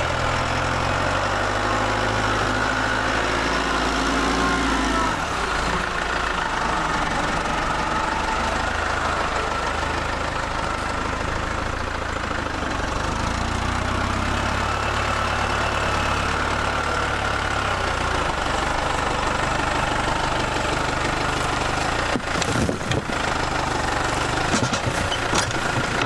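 Case Farmall 75C tractor's diesel engine running while its front loader scoops and lifts a bucket of manure, the engine note shifting twice as the load changes. A few knocks near the end as the full bucket is tipped over the spreader.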